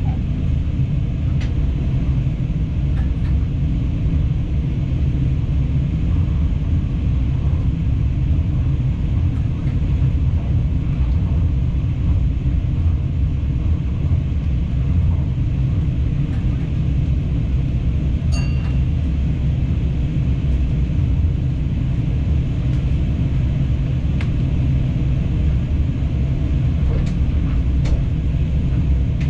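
Steady low rumble of a passenger train running along the line, heard from the driver's cab, with a few faint clicks.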